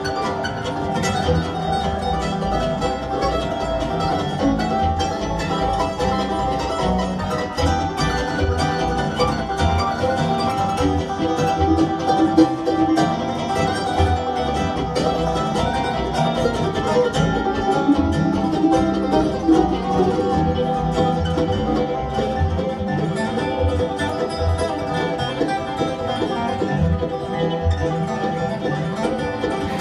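Live bluegrass band playing an instrumental tune: picked banjo, mandolin and acoustic guitar over upright bass, with fiddle.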